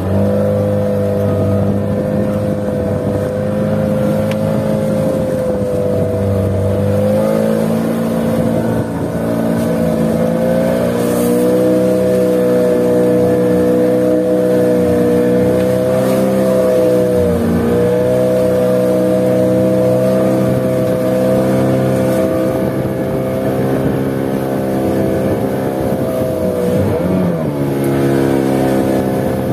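Fishing boat's motor running steadily under way, its pitch dipping briefly about halfway through and again near the end.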